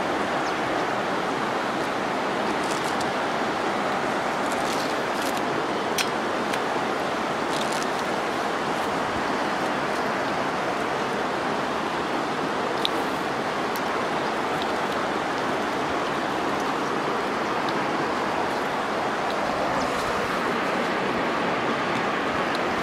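Steady rush of river water flowing and lapping over the stones at the bank, with a couple of faint clicks.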